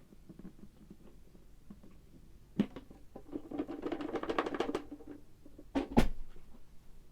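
Handling noises: a sharp knock, then a rattling clatter lasting about a second and a half, then two sharp knocks close together near the end, the second the loudest. No motor is running.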